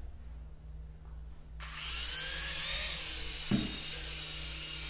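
Small toy helicopter's electric propeller motor whirring, starting about a second and a half in as a high whine that climbs slightly in pitch and then holds steady. A short thump about three and a half seconds in.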